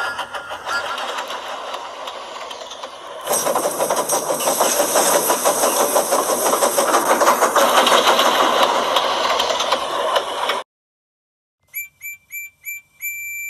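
Model train running on layout track: a rattling whir of wheels and motor, much louder from about three seconds in. It stops abruptly, and near the end come a handful of short electronic beeps and then one longer beep.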